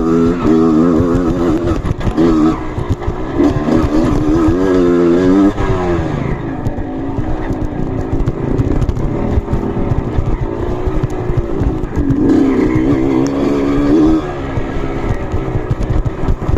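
Trail motorcycle engine revving up and down unevenly, its pitch rising and falling as the throttle is worked.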